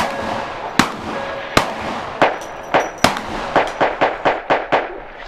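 A burst of gunfire from a hip-hop track's spoken skit, mixed in with the music: more than a dozen gunshots, spaced about a second apart at first, then coming faster, several a second, in the last couple of seconds.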